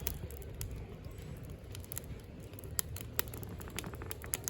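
Firewood burning in a Hillscam Firenado Large fire pit, crackling with irregular sharp pops over a low steady rumble.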